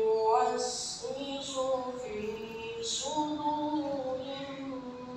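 A single voice reciting in a melodic chant, holding long notes and sliding between pitches, amplified over a public-address system.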